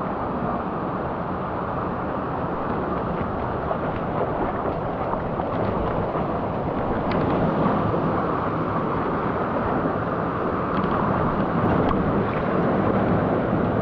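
Steady rush of a mountain stream's flowing water, slowly growing a little louder.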